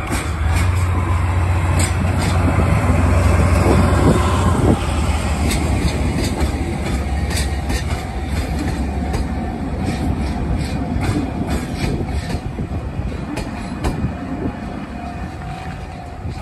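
A red DE-class diesel locomotive passes close by with a loud, deep engine drone that is heaviest in the first few seconds. The Kiha 261 series railcars it is towing then roll past, wheels clicking over the rail joints, and the sound slowly fades.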